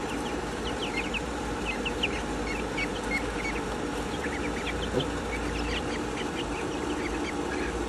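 Chickens making many short, high-pitched cheeps and soft clucks, scattered irregularly, over a steady low hum.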